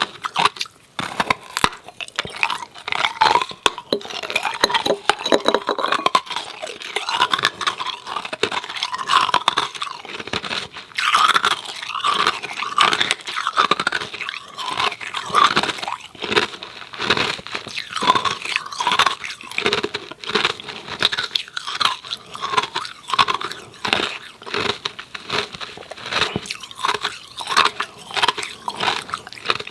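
Hard freezer-frosted ice cubes being chewed, close up to the microphone: a steady run of loud, irregular crunches and cracks.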